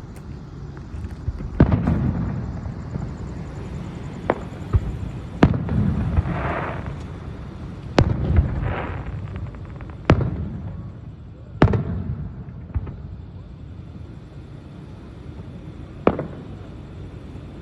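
Fireworks display: about nine booms of aerial shells bursting at irregular intervals, each followed by a low rumbling echo. Twice, about six and nine seconds in, there is a spell of crackling.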